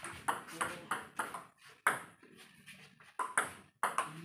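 Table tennis ball clicking off the paddles and the table in a quick rally, about three hits a second. It goes quiet for about a second midway, then the clicks pick up again.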